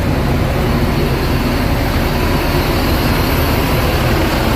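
Idling diesel engine of a parked coach, a steady low rumble with an even mechanical hiss over it.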